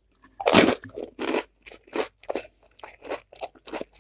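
Crisp panipuri shell bitten and crunched in the mouth: one loud crunch about half a second in, then a run of quick crunching chews, about two to three a second.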